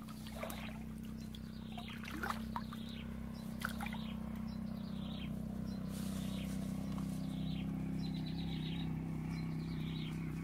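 Outdoor ambience of someone wading in shallow muddy water and pushing through shrubs, with scattered short sloshes and rustles, birds chirping, and a steady low hum underneath.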